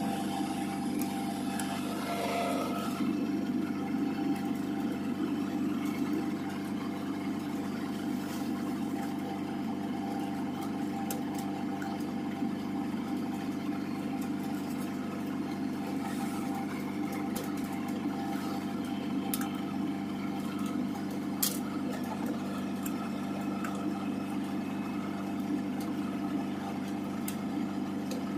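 Generator engine running steadily, a constant low hum, with a few faint clicks over it.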